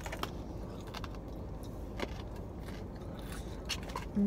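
A person chewing and biting crispy lemon pepper dry-rub chicken wings, with a few short crisp crunches and mouth clicks over a steady low hum. A brief hummed "mm-hmm" comes at the very end.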